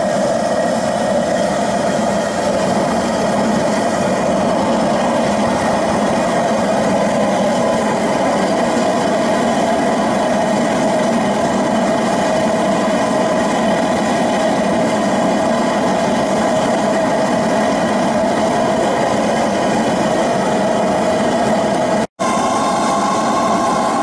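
Homemade waste-oil burner firing a melting furnace, its forced-air blower and flame running with a steady rushing noise and a hum. The sound cuts out for an instant once near the end.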